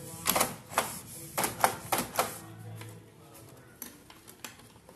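Plastic parts of an opened Canon G-series ink tank printer clicking and clattering as they are handled: about six sharp clicks in the first two seconds or so, then fainter scattered ticks.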